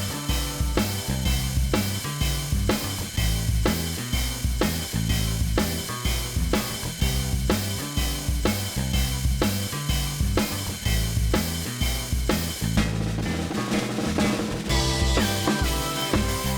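Music with a steady drum-kit beat over a repeating bass line; the cymbals drop out for a couple of seconds near the end.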